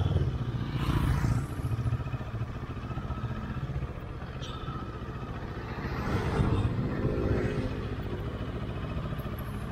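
Motorcycle engine running as the bike rides off along the road, heard from the rider's own bike, growing louder about six seconds in.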